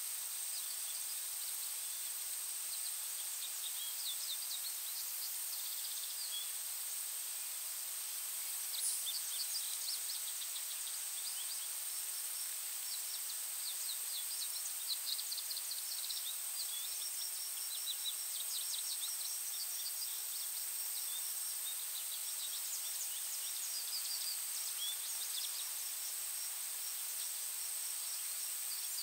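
Forest ambience: small songbirds chirping and twittering in quick high trills, scattered throughout, over a steady high-pitched drone and a soft hiss.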